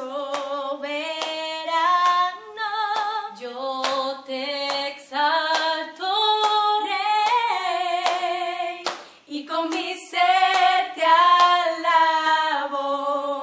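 Women singing a Spanish-language Christian worship song a cappella, holding long notes with vibrato, with hand claps between the phrases.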